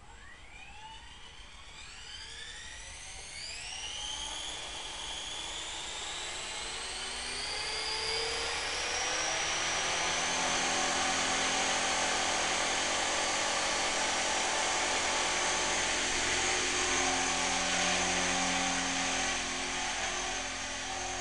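Align T-Rex 450 V2 electric RC helicopter spooling up: its motor whine rises steadily in pitch for about the first ten seconds, then holds at a steady high pitch with rotor noise as the helicopter lifts into a hover.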